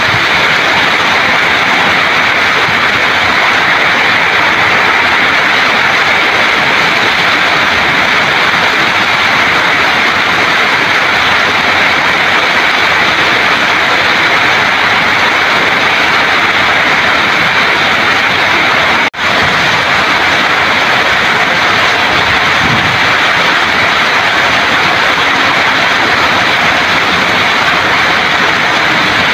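Heavy rain pouring steadily onto a waterlogged lawn, leaves and paving: a dense, even hiss. It cuts out for a split second about nineteen seconds in.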